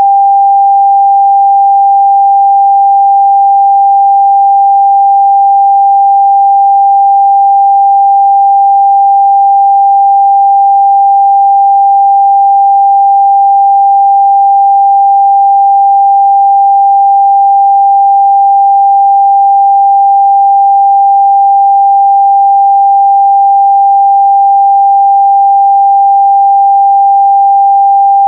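Continuous 794 Hz pure sine test tone, a single steady pitch with no harmonics, held at constant loudness.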